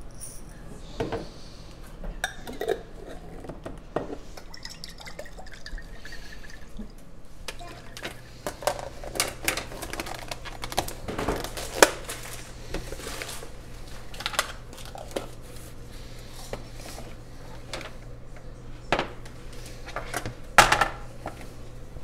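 Kitchen handling sounds: a pepper mill grinding peppercorns into a jar of dressing, then plastic food-storage containers and lids clattering and clicking, with a few sharper knocks near the middle and near the end.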